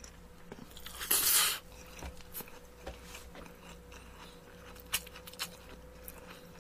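A person slurping up jjajangmyeon noodles in one hissing pull about a second in, then chewing the mouthful with faint small mouth clicks.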